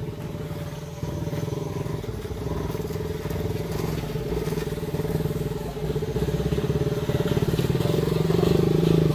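Several motorcycles riding slowly through mud toward the listener, their engines running at low speed. The sound grows steadily louder as the lead bike comes close.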